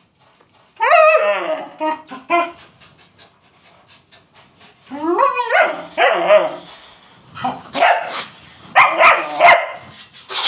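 German Shepherd barking: a rising, drawn-out bark about a second in and another about five seconds in, then a quick run of several shorter barks near the end.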